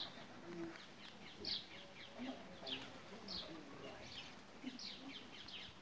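Parakeets chattering: a run of short, high chirps, each falling in pitch, coming roughly every half second, with faint lower calls underneath.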